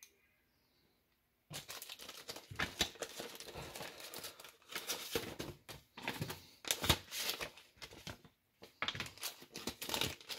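Clear plastic bag crinkling and rustling as it is handled to unwrap a pocket watch. It starts about a second and a half in and pauses briefly a little after eight seconds.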